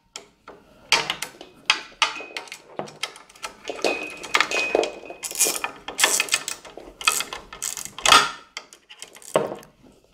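Irregular metallic clicks and clinks of a 14 mm ratcheting wrench and a hex key working a nut on a steel frame bracket, with a short metallic ring a little after four seconds in.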